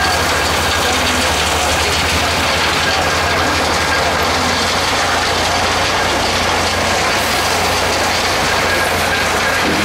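Gold-mining trommel plant running: a loud, steady rattling clatter of gravel with a low engine hum underneath.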